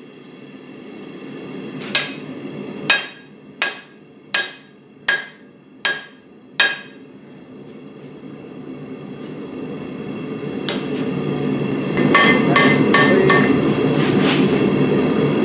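Hand hammer striking a red-hot steel cleaver blank on an anvil during rough forging: seven ringing blows about 0.7 s apart, then one more blow and a quick run of lighter ones near the end. Underneath, the steady rush of the forge grows louder.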